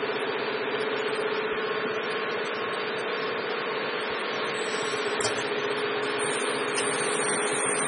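Auger powder filling machine running with a steady motor hum, as it fills a jar with a 500 g dose. A short click sounds about five seconds in.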